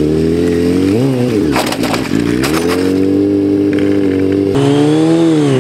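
Kawasaki Ninja sport-bike engine running at steady high revs through a stunt, with a quick dip and rise in pitch about a second in. About one and a half to two and a half seconds in, the note sags while a burst of scraping noise comes in as the bike goes down on its side. After an abrupt change, the engine note dips once more near the end.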